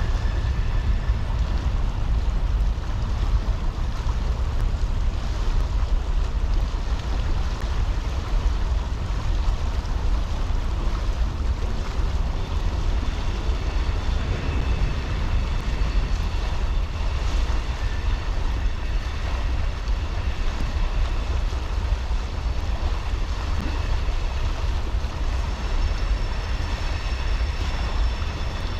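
Steady rush of a shallow, rocky creek flowing past, with a low wind rumble on the microphone.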